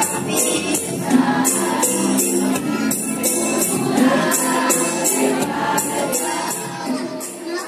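A group of girls sings together into a microphone over a steady beat of jingling, tambourine-like strokes, about two to three a second.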